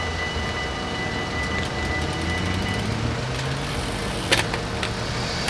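Dutch level-crossing bells ringing steadily as the barriers rise, stopping about three seconds in. A low engine hum runs underneath, and there is a sharp click near the end.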